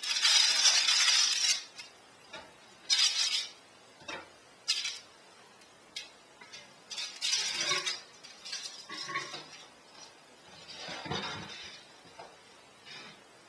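Baking parchment paper crinkling and rustling in several bursts as freshly baked baguettes are lifted off it, the longest and loudest burst at the start, with a duller, softer handling sound near the end.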